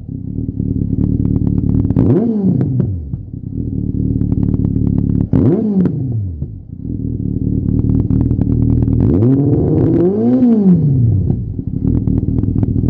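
Yamaha XJR1300's air-cooled inline-four idling through a Lextek OP1 aftermarket silencer, blipped three times. Two short revs come about two and five seconds in, and a longer, higher rev about nine seconds in, each rising and falling back to idle.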